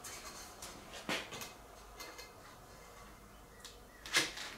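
Thin aluminum angle stock knocking against the aluminum boat's transom top as it is handled and laid in place: a light knock about a second in and a louder one near the end, with small faint ticks between.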